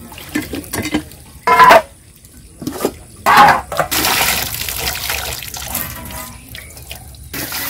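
Water from a hand pump pouring and splashing into stainless steel plates and bowls as they are rinsed. There are two short, loud splashes about one and a half and three seconds in, then a steady pour that cuts off shortly before the end.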